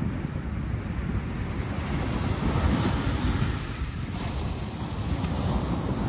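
Small sea waves breaking and washing over a pebble shore, a steady surf hiss that swells about halfway through, with a low wind rumble on the microphone underneath.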